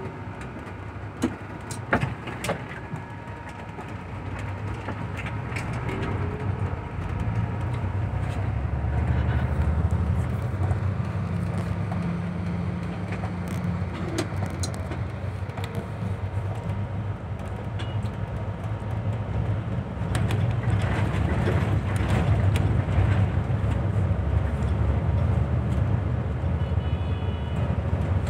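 Coach engine and road noise heard from inside the driver's cab while under way, a steady low drone that grows louder for several seconds as the bus pulls ahead. A few sharp clicks or knocks in the first couple of seconds.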